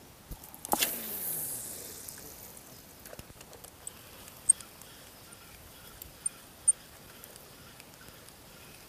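A lure cast with a small spinning reel: braided line hisses off the spool and through the rod guides, fading over about two seconds. Faint clicks follow as the retrieve starts, and three sharp high ticks come in the second half.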